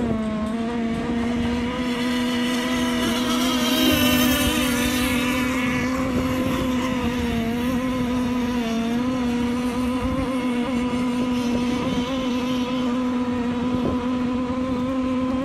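Speedboat engine running steadily at high revs, one unbroken engine note, with a louder rushing hiss about four seconds in.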